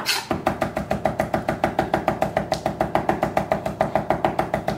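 Chef's knife rapidly rough-chopping fresh thyme on a wooden cutting board: a fast, even run of knocks, about eight strokes a second.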